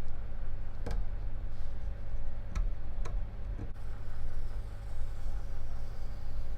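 A few light, sharp clicks and scrapes as a covering is picked and peeled off the headstock of an acoustic guitar, over a steady low hum.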